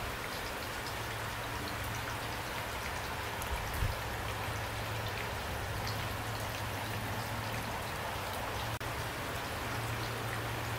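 Steady rain falling, a dense hiss dotted with sharper drop ticks, over a low steady hum.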